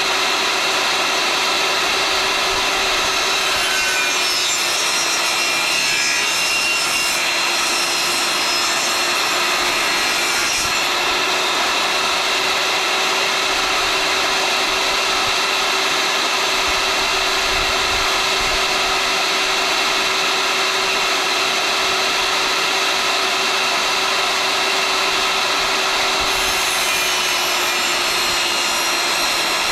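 Power saw running steadily and cutting through a thin cedar board.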